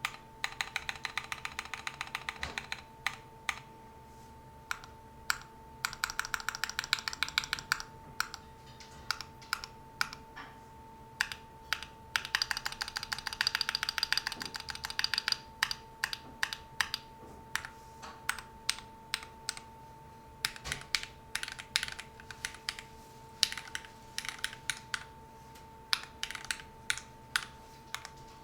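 Typing on a Keychron Q2 mechanical keyboard with Gateron Brown tactile switches lubed with Krytox 205g0 and a tape mod. Irregular keystrokes break three times into fast runs of rapid keystrokes.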